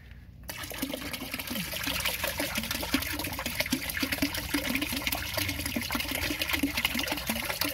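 A gallon jug of distilled white vinegar being poured into a tub of water, glugging and splashing steadily from about half a second in.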